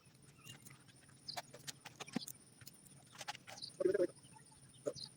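Sparse light clicks and snaps with a brief louder rustle a little before four seconds in: footsteps moving through dry scrub and twigs.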